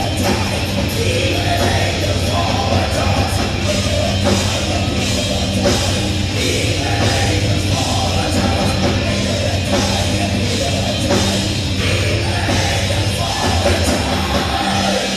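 Live heavy rock band playing loud, with electric guitars, bass and drums under a singer's vocals, heard from the audience.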